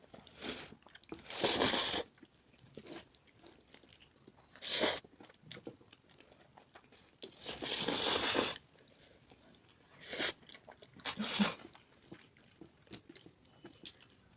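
Noodles being eaten close to the microphone: several loud slurps, the two longest a little after the start and about eight seconds in, with quieter chewing and small mouth clicks between.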